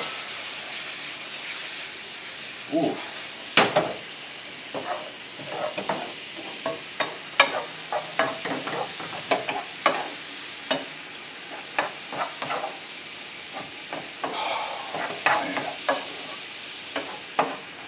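Peaches in butter, brown sugar and brandy sizzling in a stainless steel skillet as a wooden spoon stirs and scrapes them, with frequent light taps of the spoon on the pan and a sharper knock about three and a half seconds in. The brandy is cooking down in the pan.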